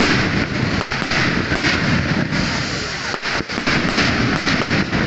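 Firecrackers bursting in a rapid, dense, continuous crackle, with a few brief gaps about three seconds in.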